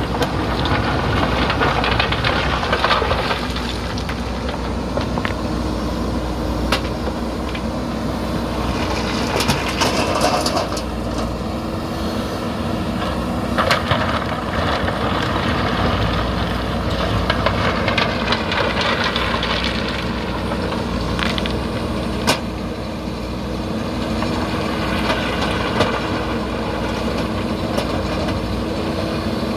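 Diesel engine of a JCB backhoe loader running steadily while it works loading stone and gravel, with a few sharp clanks and a rattling stretch about ten seconds in.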